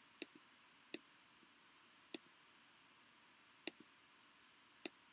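Stylus tapping on a tablet touchscreen: five sharp, unevenly spaced clicks, some with a fainter second tick just after, over near silence.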